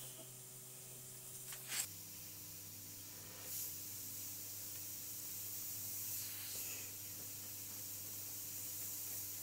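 An airbrush spraying thinned white paint: a soft steady hiss of air with a few brief louder swells as the trigger is opened further. A single sharp click comes about two seconds in.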